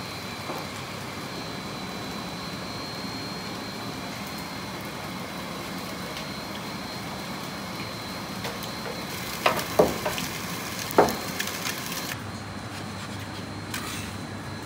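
Steady kitchen hum with a thin high whine, broken about ten seconds in by a few sharp clacks of metal tongs against the doner grill's steel tray.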